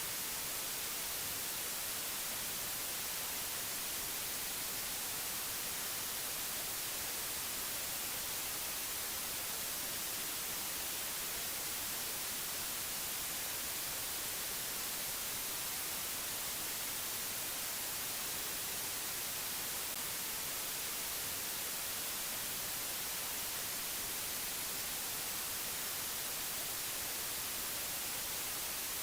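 Steady, unchanging hiss of white noise, strongest in the high treble.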